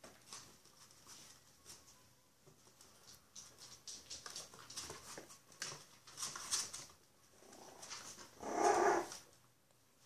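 Five-week-old Bichon Frise puppies scuffling at play on a hard floor, with light scratches and taps from claws and toys. Near the end one puppy gives a brief, loud vocalisation.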